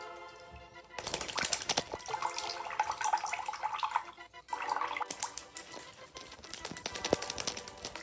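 Budgerigar bathing in a shallow sink under a trickling tap, beating its wet wings against the water in rapid flurries of splashing. The flurries start about a second in and come again after a short break near the middle.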